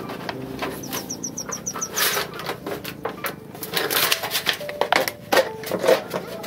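Knocks, taps and scraping from a corrugated fibre (FRP) sheet being handled and shifted on the grass. About a second in comes a short, high trill of about eight rapid chirps.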